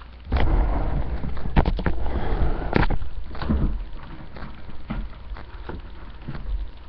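Handling noise, a low rumble with a few sharp clicks mixed in, for about three seconds. Then a run of separate light clicks roughly twice a second.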